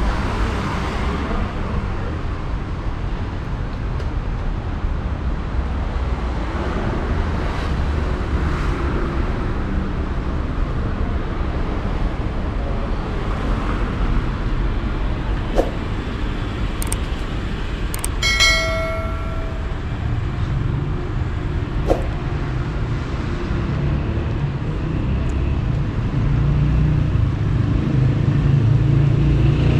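Steady street traffic, cars passing with a continuous low rumble. A short high tone sounds once, about two-thirds of the way through. Near the end a vehicle's engine grows louder as it approaches.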